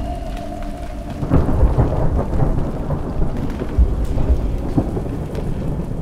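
A deep, low rumble swells up about a second in and goes on, with a steady hiss above it.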